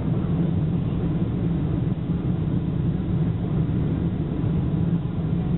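Boeing 747-400 airliner heard as a steady low rumble of engines and airflow, even and unchanging.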